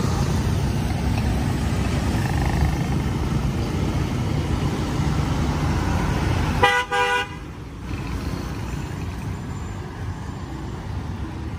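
Street traffic of motorbikes and cars as a steady rumble, broken about two-thirds of the way in by a brief vehicle horn honk. Right after the honk the rumble drops away suddenly to quieter traffic noise.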